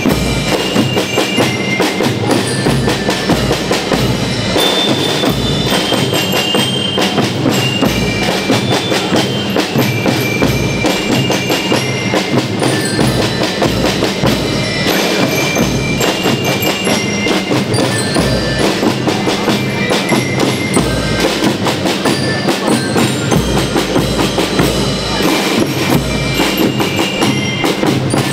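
Marching percussion band playing: snare drums, bass drums and cymbals keep a steady march beat under a melody rung out on bell lyres.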